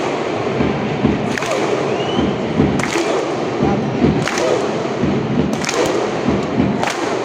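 Stadium crowd of football supporters chanting in unison over a bass drum beating about three times a second, with sharp massed claps together roughly every second and a half.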